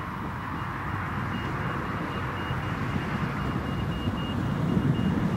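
Boeing 787-10's jet engines spooling up for the take-off roll: a steady rumble slowly growing louder, with a faint high whine that comes and goes.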